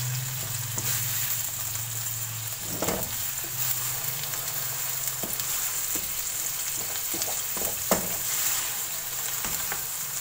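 Freshly added raw minced meat sizzling in hot oil in a wok, stirred with a wooden spoon, at the start of frying. Scattered knocks of the spoon against the pan run through the sizzle, the sharpest about eight seconds in.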